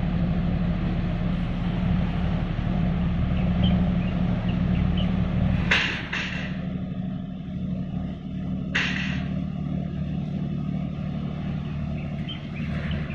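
Steady low drone of marine engines from an offshore tug/supply ship and a small launch running alongside it as they pass close by. There are a few short hissing bursts: two about six seconds in and one about nine seconds in.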